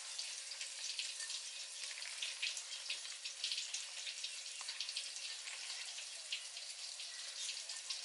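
Food frying: a faint, steady sizzling hiss dotted with small crackles.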